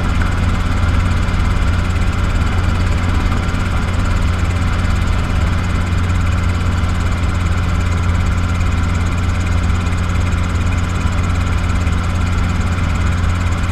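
Robinson R22 helicopter's four-cylinder piston engine and rotor running with a steady, unbroken drone.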